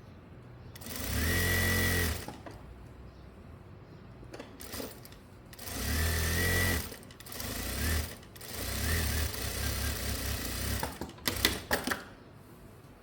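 Electric sewing machine stitching in several short runs, each lasting one to a few seconds, followed by a few sharp clicks near the end.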